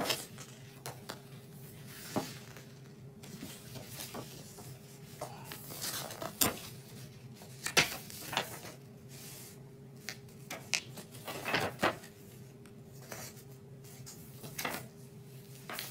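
Paper booklet pages being turned and handled: scattered rustles and light clicks, over a faint steady hum.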